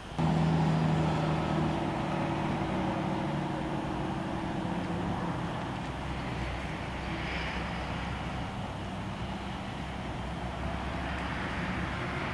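An engine running steadily: a low, even droning hum over a wash of outdoor noise. It starts abruptly and eases off slightly over the following seconds.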